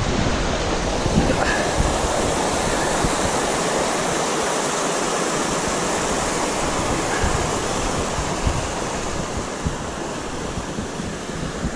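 Wind rushing steadily over the microphone, with irregular low buffeting.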